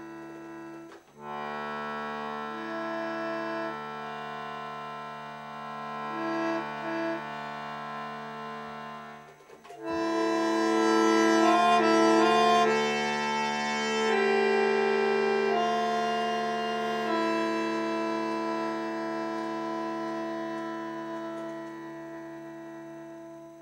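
Bandoneon playing long held chords, with a few note changes. It breaks off briefly about a second in and again near ten seconds in, swells to its loudest after the second break, then fades out at the end.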